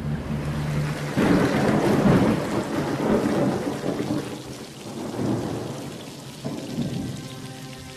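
Recorded thunderstorm in the show's soundtrack: a rolling rumble of thunder over steady rain, swelling about a second in and slowly dying away.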